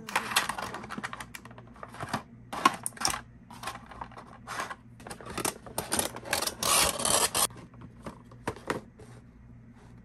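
Clear plastic packaging insert crackling and clicking as a vinyl figure is pressed into it and slid into a cardboard window box. The handling noise comes in a run of short bursts, busiest about seven seconds in, and stops about nine seconds in.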